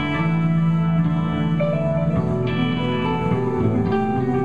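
Live rock band playing, led by electric guitars holding ringing, sustained notes. The deep bass drops away right at the start, leaving the guitars with a few fresh note attacks.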